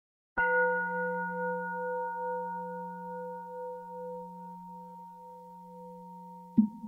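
A singing bowl struck once, ringing on with a low hum under higher tones and slowly fading, then struck again near the end.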